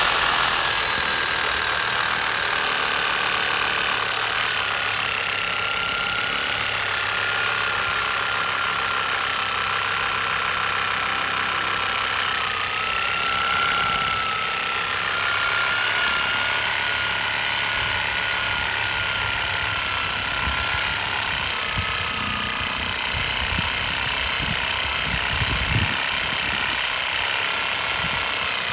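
Corded electric reciprocating saw running continuously, its blade cutting into tree roots at the base of a stump. A steady motor whine sags slightly in pitch in the first few seconds as the blade bites into the wood, with low knocking in the later part.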